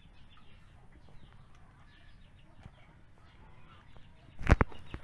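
Faint, rapid high chirping in the background. Then a loud bump about four and a half seconds in, the kind made when a phone's microphone is knocked or handled.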